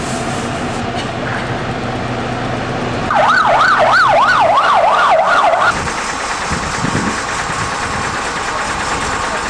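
Street traffic noise, and about three seconds in a police car's siren yelps, its pitch sweeping quickly up and down about three times a second for two and a half seconds before cutting off.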